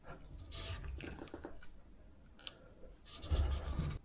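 A wood chisel paring and cutting a small wooden wedge held in a bench vise: short scraping strokes and a few clicks, with a longer, louder scrape near the end.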